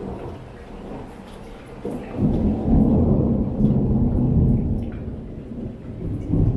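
Thunder rolling in a long low rumble that builds about two seconds in and eases off a few seconds later, swelling again near the end, over rain falling.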